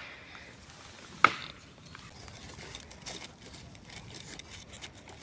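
Small campfire of twigs crackling faintly, with one sharp pop about a second in and scattered light crackles later.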